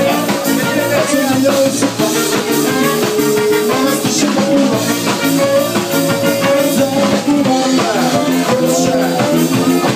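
A live band playing an instrumental stretch of a song with guitar and drum kit over a steady beat, without singing.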